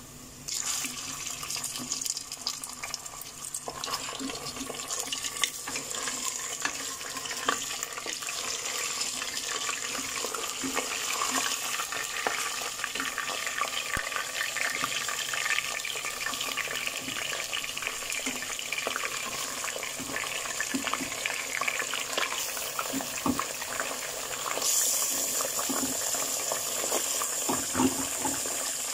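Raw mutton pieces sizzling in hot oil with fried onions in a pressure cooker pot as they go in to be browned, a steady hiss with crackles. It starts about half a second in and grows louder near the end as more meat is added.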